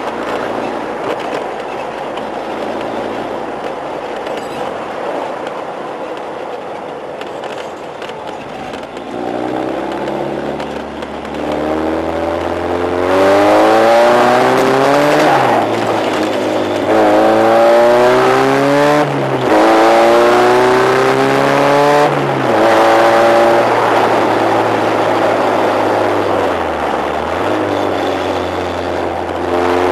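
Westfield sports car engine pulling steadily, then accelerating hard through several gears about halfway through, the pitch climbing and dropping at each shift, then settling to a steadier run.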